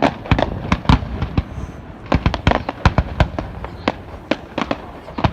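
Fireworks display: a rapid, irregular string of sharp bangs and cracks from bursting shells, several a second, over a steady low rumble.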